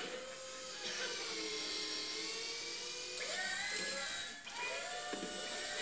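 Electronic servo-whine sound effect for a robot's jerky movements: a pitched whirring that glides down and levels off, then rises again in short stretches, with a brief break near the end.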